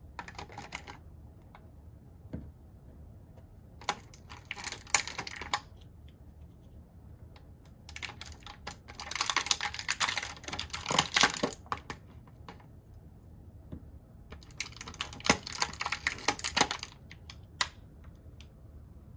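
Toy packaging and small plastic toy pieces handled by hand: about four bursts of crinkling and clicking, with quiet gaps between them.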